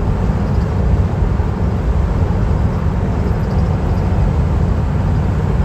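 Steady low rumble of road and engine noise heard inside a van cabin cruising on the highway.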